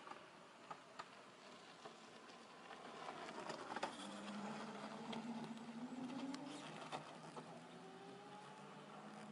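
Homemade electric motorcycle with a rear hub motor passing on a gravel road, faint and with no engine noise: tyres crunching and pebbles clicking, loudest as it goes by about four seconds in, with a low motor hum that rises slowly in pitch.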